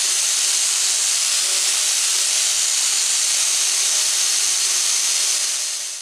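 Hand-held angle grinder with a sanding disc, running and sanding the edge of a small aluminium part: a steady high hiss over a faint motor hum, fading out near the end.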